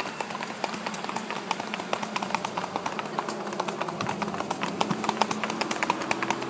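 Paso Fino horses' hooves striking in their quick, even four-beat gait: a rapid, steady clatter of hoofbeats, the white horse's hooves clicking on a concrete sidewalk.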